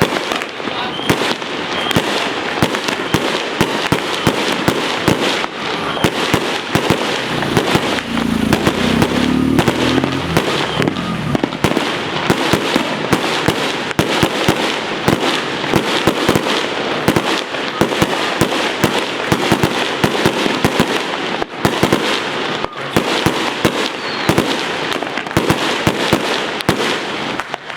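Fireworks and firecrackers going off without a break: a dense, continuous crackle of bangs and pops, with heavier low booms about eight to eleven seconds in.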